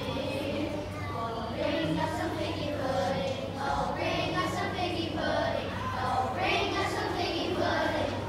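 A group of children singing together, with held notes, over a steady low hum.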